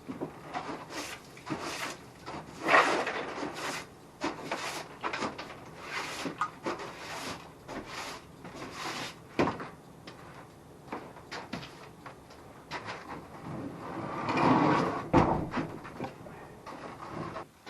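Old wooden canning cupboard being moved and turned around: a string of wooden knocks, bumps and scrapes, with a sharp knock about three seconds in and a longer, louder scrape near the end.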